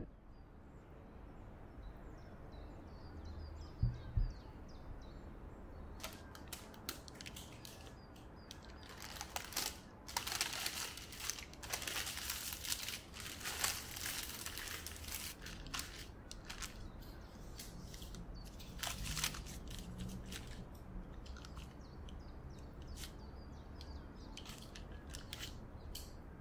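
Two low thumps about four seconds in as a ceramic baking dish is set down, then baking parchment crinkling and rustling as it is handled with a batch of baked buns on it, thinning to scattered light crackles near the end.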